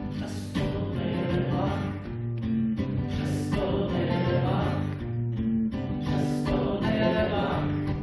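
Live acoustic guitar strummed steadily under a man's singing voice, a short phrase sung three times, about three seconds apart.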